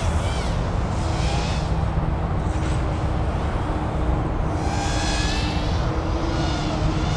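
FPV racing quadcopter's Foxeer Datura 2206 2700kv brushless motors whining, rising and falling in pitch with the throttle several times, over a steady low rush of wind noise.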